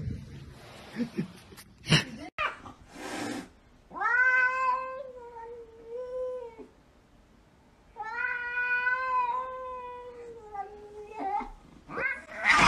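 A cat yowling at a window: two long, drawn-out meows, each about two and a half seconds and held at a steady pitch, after a few short knocks.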